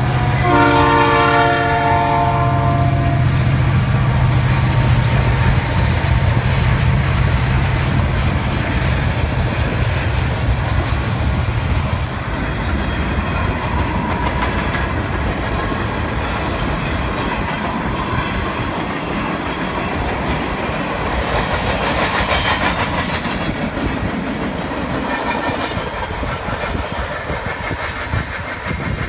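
CN GP40-2W diesel locomotive sounding its multi-note horn for about three seconds for a level crossing, then its engine drones past. After about twelve seconds the freight cars roll by, with steady wheel-on-rail noise for the rest.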